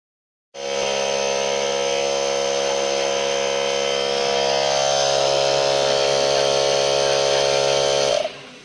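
Electric fan running: a steady motor hum with a hiss of moving air. It starts suddenly about half a second in and cuts off abruptly near the end.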